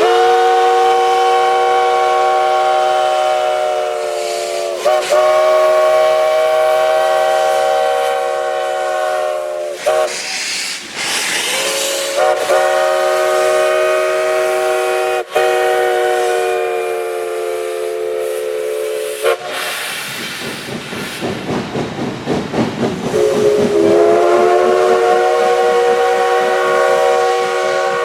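ALCO 5-chime steam locomotive whistle blowing long chord blasts: one of about ten seconds that wavers in pitch halfway, another of about seven seconds, and a third starting near the end. Between the last two blasts come about three seconds of rapid rhythmic chuffing from the locomotive.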